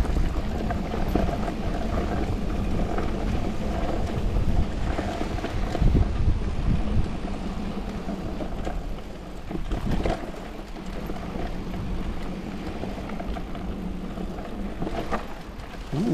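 Electric mountain bike rolling down a rocky dirt singletrack, heard from a camera mounted on the bike: a steady rumble of tyres and rattling with a few louder knocks over rocks, and wind on the microphone.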